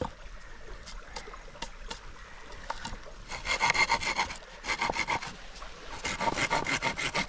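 Hand saw cutting through bamboo in quick, even back-and-forth strokes. The sawing starts about three seconds in, breaks off briefly, and picks up again near the end, after a few light knocks at the start.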